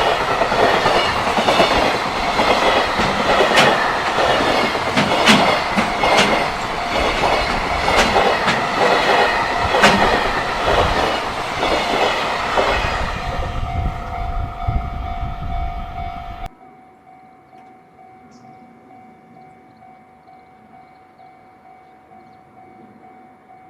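Freight train passing close by, its wheels clattering over the rail joints with sharp clicks, easing off as the last wagons go by. About sixteen seconds in the sound drops away abruptly, leaving a faint steady tone.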